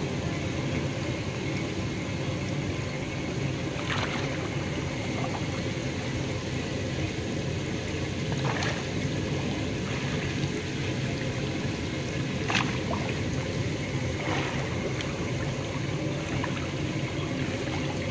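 Steady rush of moving water in a small pool, with a few short, separate splashes as a child slaps and splashes the water; the sharpest splash comes about two-thirds of the way through.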